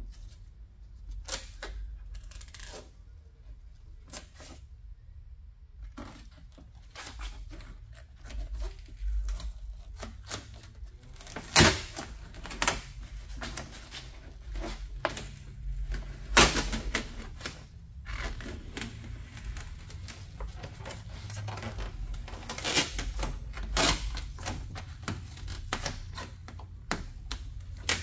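Plastic vapor barrier being peeled off a truck's inner door panel: irregular crinkling, clicking and tearing as the sheet pulls away from where it is stuck, with a few sharp, loud cracks.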